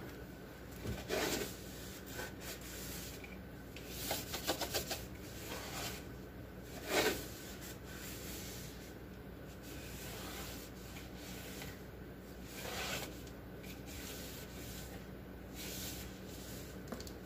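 Intermittent rubbing and scraping as a refrigerator's shelves and contents are wiped and handled, with a quick run of strokes about four seconds in and the loudest scrape about seven seconds in.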